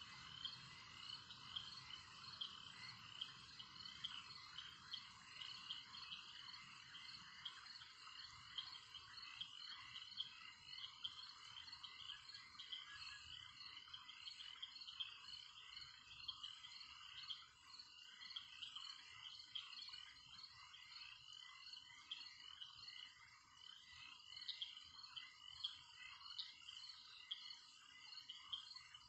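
Faint, dense chorus of many short, rapid animal chirps, like frogs and insects calling at night.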